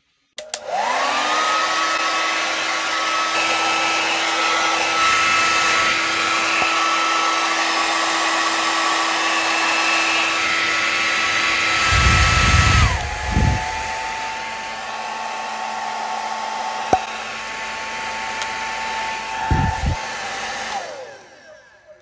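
Remington Power Dry 2000 hair dryer switched on, its motor spinning up to a steady high whine over rushing air. About two-thirds of the way through it is switched down to a lower speed, and the whine drops in pitch. Near the end it is switched off and winds down, with a few brief low rumbles along the way.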